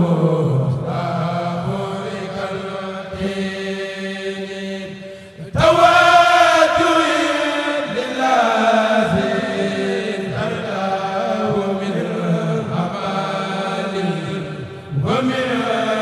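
A kourel choir chanting a Mouride khassida in Arabic together. Each line is sung as a long phrase; after a brief dip, a new phrase comes in loudly about five and a half seconds in, and another starts just before the end.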